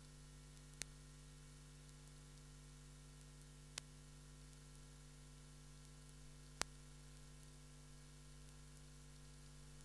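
Near silence: a low steady hum and faint hiss, broken by three short sharp clicks, about one, four and seven seconds in.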